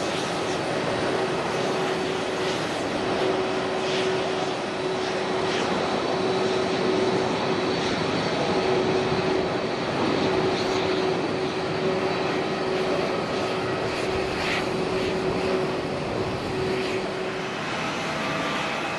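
Jet engines of a Solaseed Air Boeing 737-800 at takeoff thrust as it lifts off and climbs away: a steady, loud rush with a held droning tone under it. The tone stops shortly before the end.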